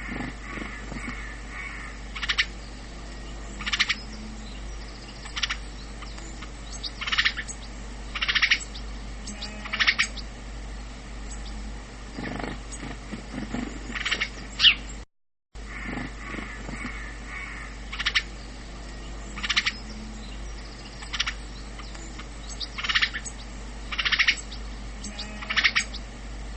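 House sparrow chirping: short single chirps repeated every second or two over a steady low hum, cutting out briefly about halfway through.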